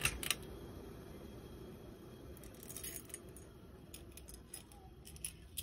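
Faint steady hum of a running Fanimation Aire Decor ceiling fan. Scattered light metallic clicks and jingles sound over it: a few at the start, a cluster around the middle and more near the end.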